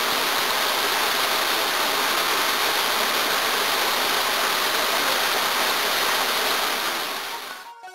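Steady rush of running water, fading out near the end.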